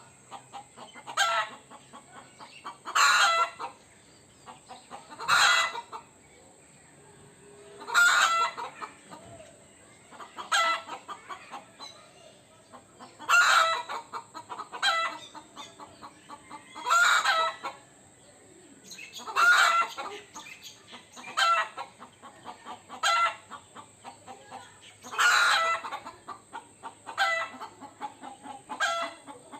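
Rooster giving alarm calls: a loud call every one to three seconds, with a rapid run of softer clucks between them, a warning to the flock about danger.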